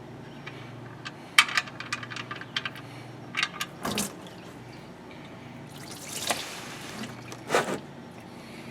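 Engine oil draining from a Jeep Wrangler JK into a drain pan, with a few sharp clicks and knocks in the first half and two louder pouring swells near the end.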